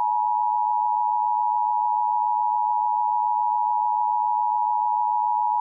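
Emergency Alert System attention signal: a steady, unwavering two-tone electronic beep, the alarm that precedes an emergency broadcast message.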